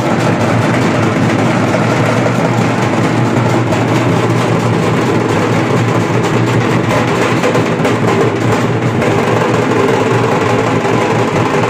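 A dhol pathak ensemble of many large steel-shelled dhol drums beaten together with sticks, playing a loud, continuous massed rhythm without a break.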